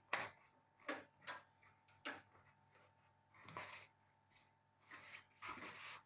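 Light knocks and taps as the aluminium T-slot bed plate is handled and lifted, four short ones in the first two seconds. Then two longer rustles as a foam packing sheet is moved and pressed flat.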